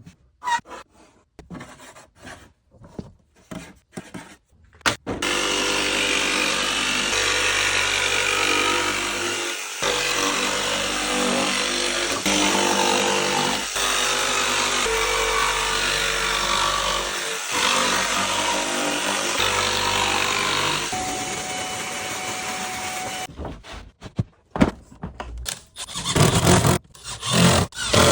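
A handheld power tool runs steadily for about eighteen seconds, scrubbing small shop parts clean, with a brief dip near the middle. Scattered knocks and clatter of handling come before and after it.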